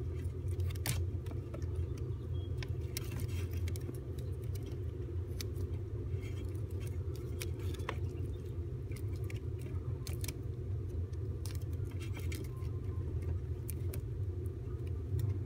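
Electrical tape being wrapped tightly around a spliced wire by hand, giving scattered small crackles, peeling ticks and rattles from the wire harness over a steady low hum.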